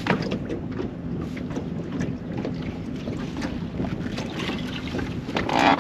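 Boat motor running steadily with a low hum, with wind on the microphone and a few light knocks around the boat.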